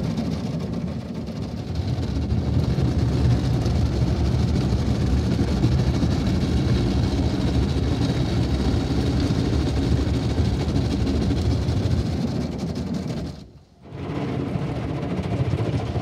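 Automatic car-wash machine scrubbing the car, its rotating brushes and water spray heard muffled from inside the closed cabin as a steady, low, heavy wash noise. It drops out abruptly for under a second about three-quarters of the way through, then resumes.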